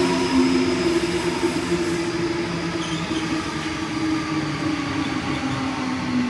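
A train running through a station: steady rail noise with sustained tones that slowly drop in pitch, and a faint high tone above them.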